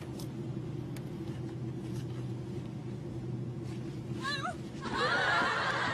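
A steady low hum, then about four seconds in a short, high, wavering squeal as the woman is grabbed from behind, followed near the end by a louder burst of high-pitched squeals and laughter.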